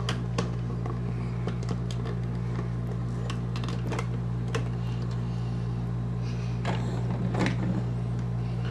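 Scattered light clicks and knocks of plastic toy vehicles being handled and set down on a plastic tabletop, over a steady low hum.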